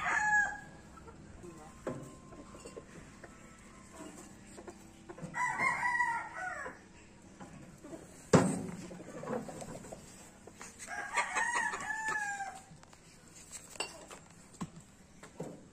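Gamefowl roosters crowing twice, a long drawn-out crow about five seconds in and another about eleven seconds in, with a single sharp knock between them.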